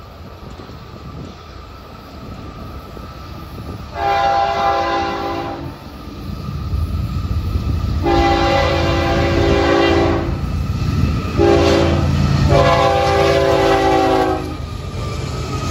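Florida East Coast Railway GE ES44C4 diesel locomotive's air horn sounding the grade-crossing signal: two long blasts, a short one and a final long one. Under it the locomotive's low engine rumble grows as it comes close and passes.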